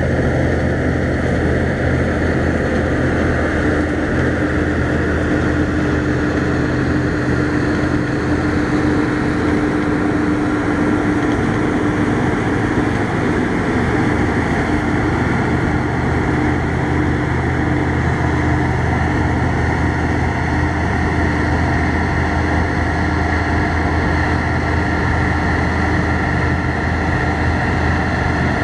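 New Holland TX34 combine harvester running steadily under load while cutting winter barley: a constant engine and machinery drone with a steady hum.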